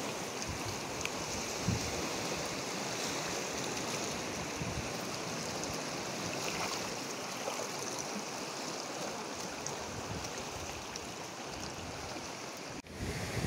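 Seawater washing and trickling through channels between shoreline rocks: a steady rush of flowing water. It breaks off for an instant near the end.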